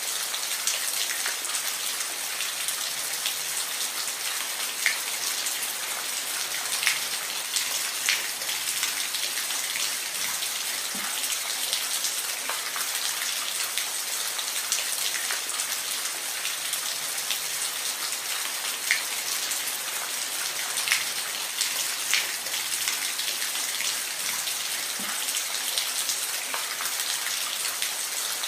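Steady rain falling, with individual drops ticking sharply on a hard surface every second or so over a constant hiss.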